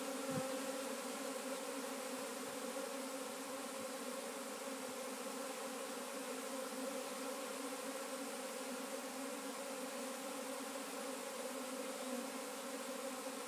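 Steady hum of a honeybee swarm, thousands of bees buzzing together at an even, unchanging pitch.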